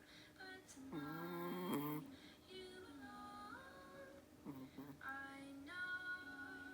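Soft song played back faintly: a high singing voice holding notes that step up and down in a slow, gentle melody.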